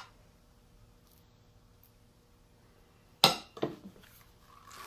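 Quiet room, then about three seconds in a sharp clink followed by a few lighter clacks: a metal spoon being set in the serving dish and a plastic rotary cheese grater being picked up and handled.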